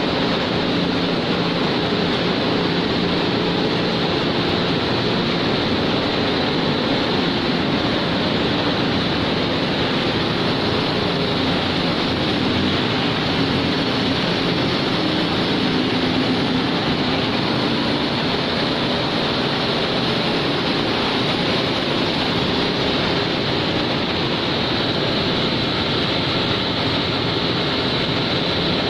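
Steady din of a PP hollow sheet extrusion line running: an even rushing machine noise with a faint low hum.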